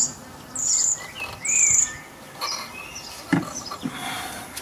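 A small songbird chirping: three short, high calls evenly spaced in the first two seconds, then fainter chirps. A single light knock comes about three seconds in.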